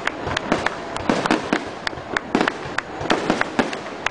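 Aerial fireworks going off in quick succession: many sharp cracks and bangs at irregular intervals over a continuous crackling rumble.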